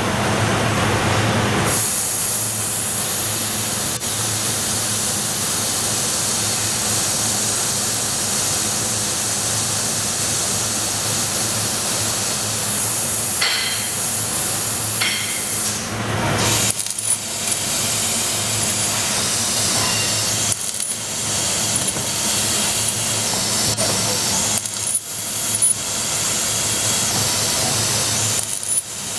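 Trumpf L3030 CO2 laser cutter cutting sheet steel: a loud, steady hiss at the cutting head that sets in about two seconds in and breaks off briefly four times in the second half.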